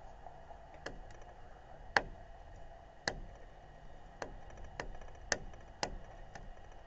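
A series of sharp clicks, about eight at uneven spacing of roughly one a second, each with a brief ringing tail, over a faint steady hum.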